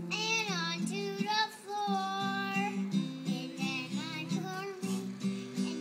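A young girl singing a children's song over an acoustic guitar strummed in a steady rhythm.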